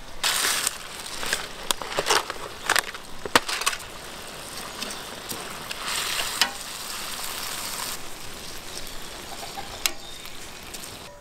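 Onions cooking over the fire, a steady sizzle with sharp crackles and pops scattered through it. The loudest pop comes about three and a half seconds in.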